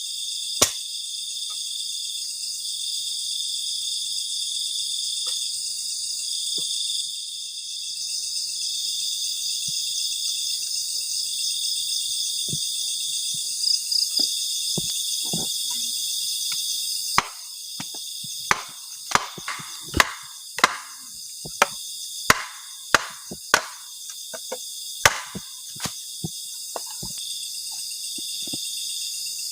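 Crickets and other night insects trilling steadily. Over it come sharp chopping blows, wood being chopped for the fire: a few early on, then about a dozen in quick succession in the second half.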